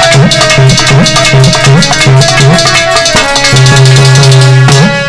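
Instrumental interlude of Indian dehati folk katha music: a harmonium playing a melody over a quick, steady percussion beat.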